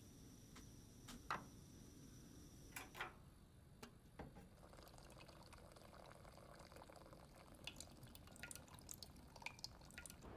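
Faint, quiet kitchen sounds of coffee being made: water dripping and pouring, with scattered small clicks and ticks.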